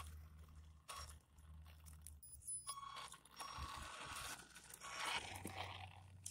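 Hosim 9125 1/10-scale RC truck driving slowly on asphalt: its motor and gears whirr with light mechanical clicks, and a few short high beeps come about two seconds in.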